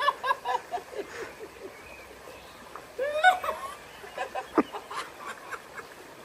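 Short calls and laughter from people, with water splashing and running.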